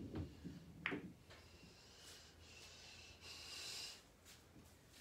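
Bumper pool balls clicking together on the table: a sharp click about a second in, after the tail of a knock at the start. A faint, breathy hiss follows a little past the middle.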